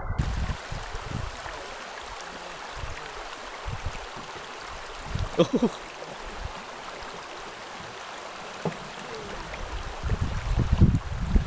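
Rushing water of a shallow river rapid, a steady hiss. Wind buffets the microphone at the start and again near the end, and a brief voice-like call cuts through about five seconds in.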